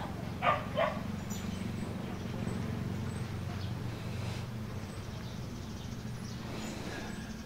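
Outdoor background: a steady low hum with faint, high bird chirps here and there, and two short animal calls about half a second in.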